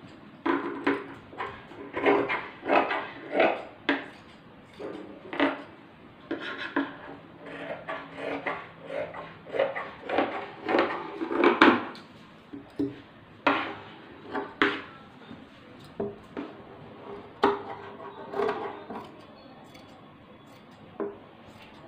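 Large tailoring scissors cutting through T-shirt knit fabric on a tabletop: a run of irregular snips of the blades closing, thick in the first half and thinning out toward the end.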